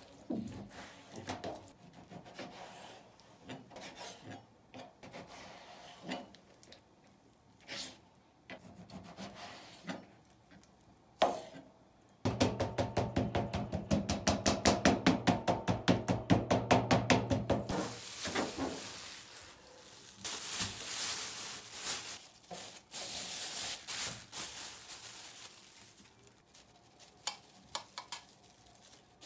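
Kitchen food-preparation sounds: utensils, bowls and food being handled, with scattered knocks. About twelve seconds in comes a run of about five seconds of fast, even strokes, followed by a hissing, rustling stretch.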